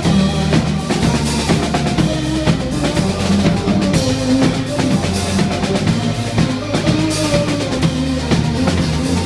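A band playing an instrumental passage: a drum kit with bass drum and snare keeping a steady beat over a moving bass line, without singing.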